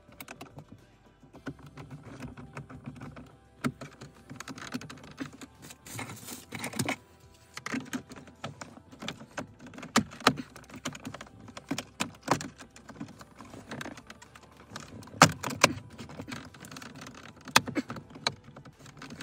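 Plastic centre-console trim and switch panel of a 2016–2020 Honda Civic being handled and clipped back into place after an electric parking brake switch replacement: irregular clicks, taps and rustling, with a few louder snaps in the last third.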